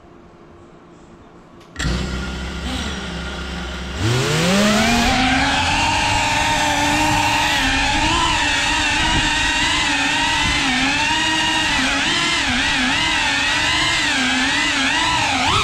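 FPV quadcopter's brushless motors arming and idling, starting abruptly about two seconds in. About four seconds in they spool up in a rising whine, then run loud and steady at flight throttle, their pitch wavering as the throttle changes.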